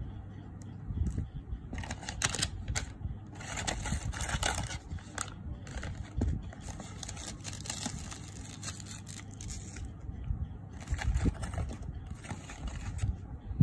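Plastic sleeve and foil pouches from a rapid antigen test kit crinkling as they are handled, in four rustling bursts of a second or two each.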